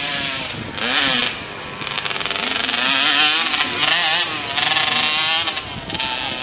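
Small mini-motocross dirt bike engines revving hard, their pitch repeatedly rising and falling with throttle and gear changes through the turns.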